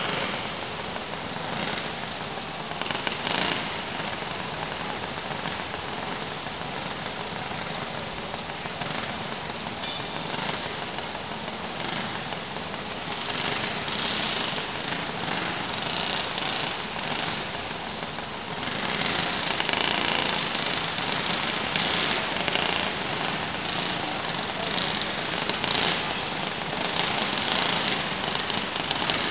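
Small kid kart engines running as the karts race, a steady engine drone that grows louder about 18 seconds in.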